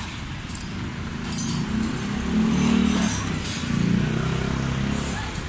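Low rumble of a motor vehicle's engine running close by, swelling about two seconds in and easing off near the end, with a few light metallic clinks of tools and loose bolts.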